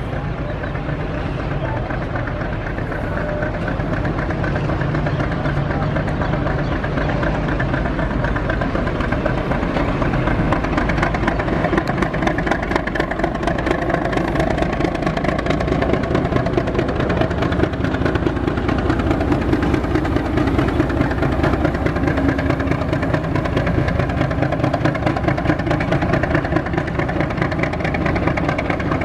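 Diesel-electric locomotive engine running as a lone locomotive approaches, growing gradually louder, with a rapid even pulsing in its sound.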